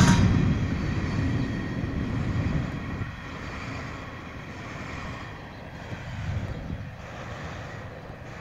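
Freight train of hopper cars rolling past on the tracks, its rumble fading away over about three seconds as the end of the train goes by, leaving a quieter steady rumble.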